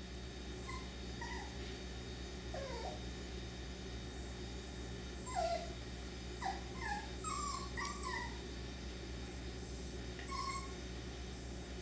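Cockapoo puppies whimpering and yipping: many short, high, falling whines, scattered at first and coming thicker in the middle and again near the end.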